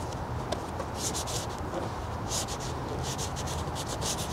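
An adhesion promoter wipe rubbed quickly back and forth along the edge of a Tesla Model 3's trunk opening, in several short spells of scrubbing strokes. The surface is being cleaned ready for 3M tape.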